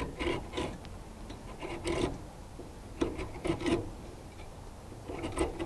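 Fin-straightener comb being pulled up through the coil fins of a Dometic Penguin 2 rooftop air conditioner, giving several short rasping scrapes in uneven bursts, as it straightens dinged, bent fins.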